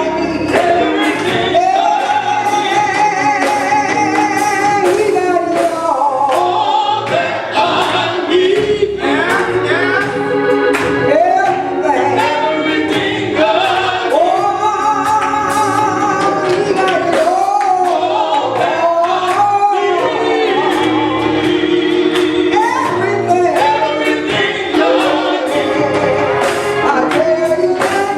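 Gospel singing by a choir with instrumental accompaniment and a steady beat.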